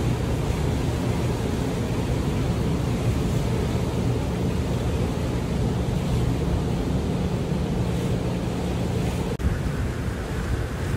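Ferry engine running with a steady low hum, with water rushing past the hull and wind on the microphone. The sound breaks off for an instant about nine seconds in.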